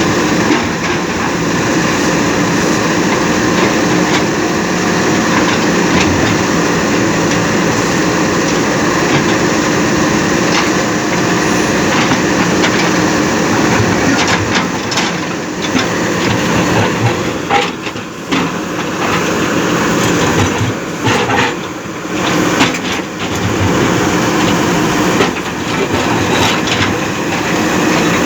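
Diesel engines of JCB backhoe loaders running steadily under load, with knocks and cracks from about halfway through as the old bridge is broken up.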